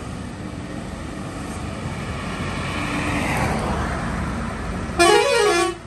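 Heavy goods trucks' diesel engines running and growing louder as they pull away and approach. Near the end a truck horn blasts for under a second, its pitch rising and then falling.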